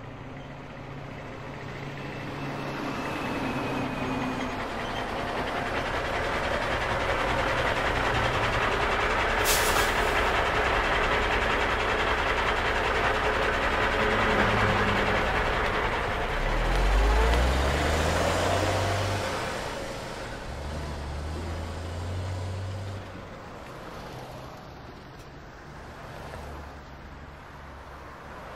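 City bus at a stop with traffic going by. A short sharp air-brake hiss comes about a third of the way in. Past halfway the bus's engine note climbs in steps as it pulls away, then fades.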